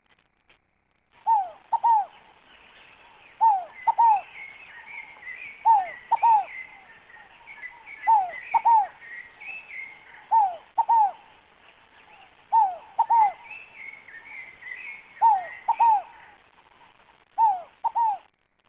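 A fogo-apagou ground dove cooing: a two-note phrase of falling coos, repeated about every two seconds, eight times. Other small birds chirp faintly and higher in the background.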